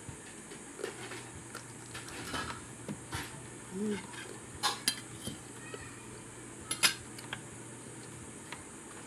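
Eating utensils clinking and scraping against a plate during a meal, in scattered sharp clinks, the loudest two together a little before five seconds in and one near seven seconds.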